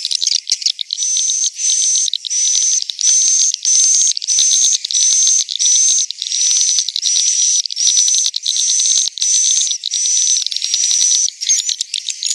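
Swiftlets calling in a swiftlet house: a run of even, buzzy chirps at nearly two a second, each with a steady high whistle in it, with quicker, irregular chattering at the start and near the end. This is a swiftlet roosting-call ('suara inap') recording of the kind played to draw swiftlets in to roost.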